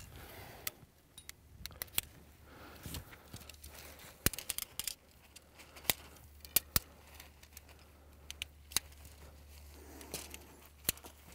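Tent pole sections clicking and rattling as they are fitted together: a series of irregular sharp clicks over quiet handling noise.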